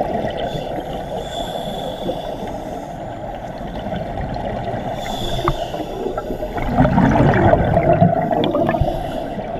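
Muffled underwater rushing heard through a camera housing. About seven seconds in, a scuba diver's exhaled regulator bubbles gurgle louder for a couple of seconds.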